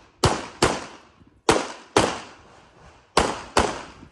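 Six pistol shots from a CZ 75 SP-01 Shadow, fired as three quick pairs about 0.4 s apart with roughly a second between pairs: double taps, two rounds on each target. Each shot rings out briefly.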